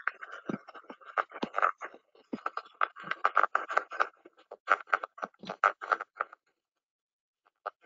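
Ultrasound recording, converted down to audible sound, of internal partial discharge in a 35 MVA transformer's on-load tap changer, picked up by a structure-borne sensor at 20 kHz. It is irregular crackling and popping that stops about six seconds in, with a few more pops near the end. The discharge is the sign of arcing at the tap changer, which was confirmed at maintenance.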